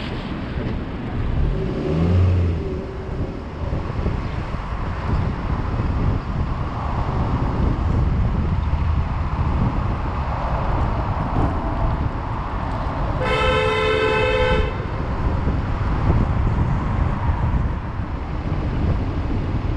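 City street traffic running steadily, with a vehicle horn honking once for about a second and a half, a little past the middle.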